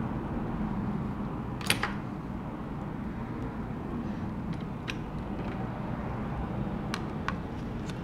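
Light, sharp clicks of small metal parts and tools as the screws of an iPhone 6 battery connector bracket are taken out: a double click about two seconds in, then a few single ones, over a steady low hum of room noise.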